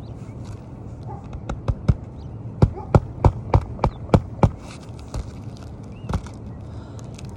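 Hammer striking roofing nails to refasten an asphalt shingle: a run of sharp blows about three a second, then two single blows a little later.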